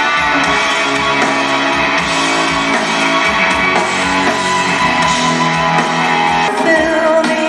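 Live band music heard from the audience on a camcorder: a guitar-led passage with steady accompaniment. A sung voice comes in near the end.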